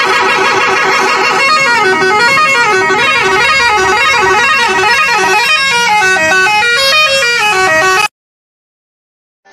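A musical vehicle horn playing a loud tune: a fast warble at first, then notes stepping up and down in a repeating melody. It cuts off suddenly about eight seconds in.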